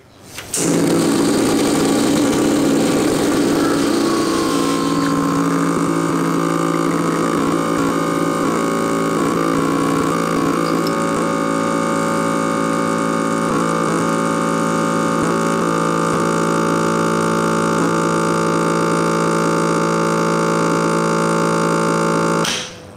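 Espresso machine's pump running steadily while pulling a shot, a loud, even buzz that shifts in tone a few seconds in and cuts off suddenly just before the end.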